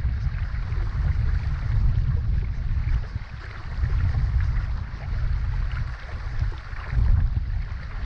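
Strong wind buffeting the microphone in gusts, a low rumble that surges and eases and is strongest near the end, over the steady hiss of a shallow creek running over stones.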